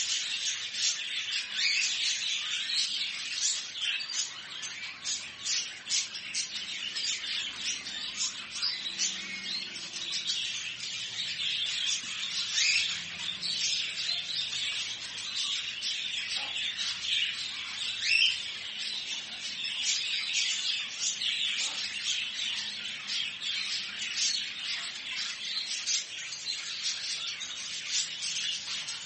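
Many small caged birds chirping and calling at once, with occasional squawks, making a dense, continuous din.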